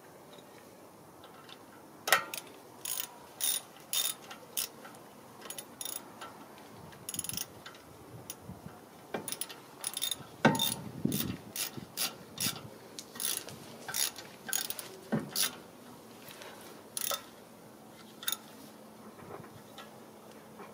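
Hand ratchet wrench clicking in irregular runs as the screw that holds a new front brake rotor to the hub is driven in, with a few dull knocks against the rotor. The clicks begin about two seconds in and stop shortly before the end.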